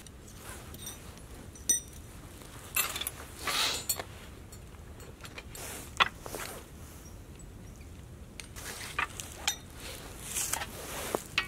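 Camp tableware being set down on a slatted wooden table: scattered clinks and knocks of cutlery, cups, a small gas canister stove and a can, with soft swishes in between.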